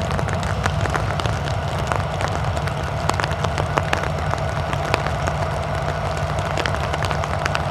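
A lashup of diesel-electric freight locomotives runs steadily as a low engine drone with a steady whine above it, the train stalled on the grade for lack of power. Many small sharp ticks of raindrops sound over it.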